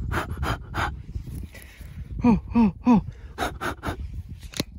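A man's quick, sharp breaths, with three short groans in a row about two seconds in.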